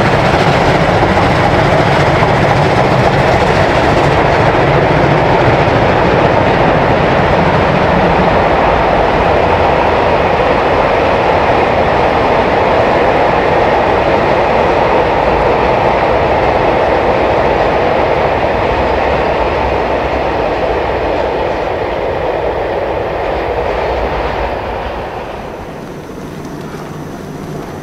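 Steam-hauled goods train rolling past on the track, with a steady rumble and clatter of the wagons' wheels on the rails. The noise eases off and drops away about 25 seconds in as the train moves off.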